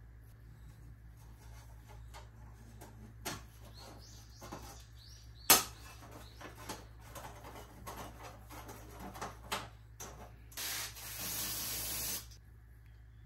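Small metal clamp being handled on a brass ring with light clicks and one sharp metallic click about halfway through. Near the end an aerosol spray can hisses, a short burst followed by a longer spray of about a second and a half.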